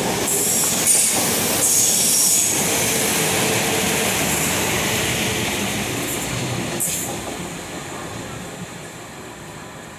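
Train running past with high-pitched wheel squeal in the first few seconds, then its noise dying away as it moves off.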